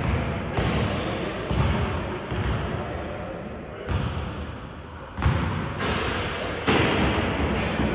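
A basketball bouncing on an indoor court several times in the first few seconds, over echoing crowd voices in the hall, which grow louder twice in the second half.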